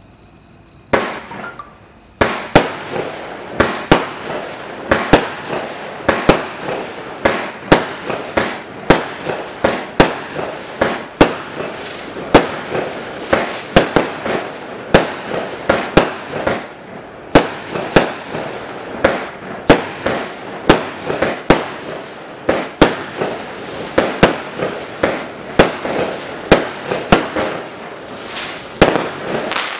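A 200-gram consumer fireworks cake (Wheelie) firing a long string of shots. The sharp reports come about every half second over a steady hiss, starting about a second in and running about 27 seconds.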